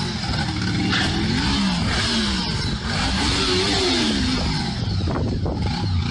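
An engine revving up and down several times over a loud rumbling clatter, with a few knocks near the end.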